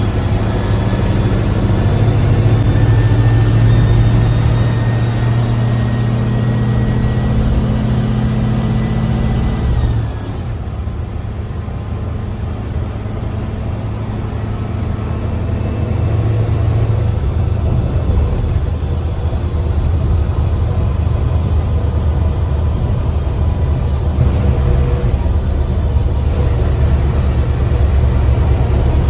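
Mercedes-Benz bus diesel engine pulling with a high turbo whistle rising slowly over about ten seconds. The whistle falls away and the engine drops off suddenly about ten seconds in, then the engine gradually builds again.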